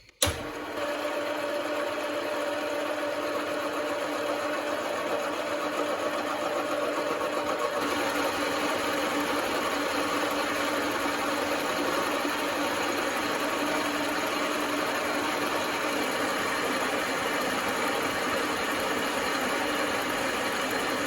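Mini lathe switched on with a click, then running steadily with a whine, its slower power feed driven through 3D-printed plastic change gears during a test cut.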